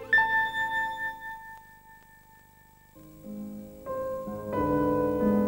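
Background music: a single high struck note rings and fades away, then soft piano notes come in about three seconds in and grow louder.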